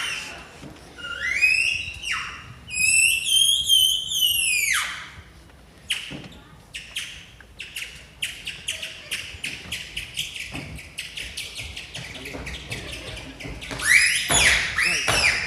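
A whistle blown through a piece of polyethylene film, making bird-like calls that slide up and down in pitch with a buzzy edge. It stops for a run of quick taps, about four or five a second, then whistling comes back near the end.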